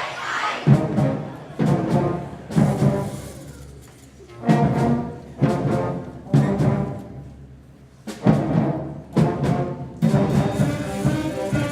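A school concert band of 5th and 6th graders playing, with brass and timpani: sharp accented full-band chords about a second apart, each dying away before the next. From about ten seconds in the playing turns steadier and fuller.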